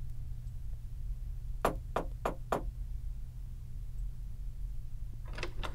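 Knuckles knocking on a wooden panelled door: four quick, even raps about a second and a half in, with a few more short taps near the end, over a low steady hum.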